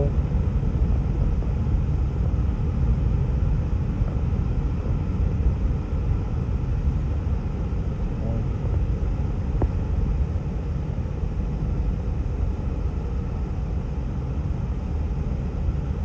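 Steady low rumble of traffic on a slushy road, heard from inside a car moving slowly behind a convoy of salt trucks.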